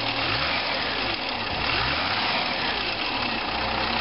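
Triumph 2000TC straight-six engine revved twice while still cold, the pitch rising and falling with each blip of the throttle, then dropping back to a steady idle near the end.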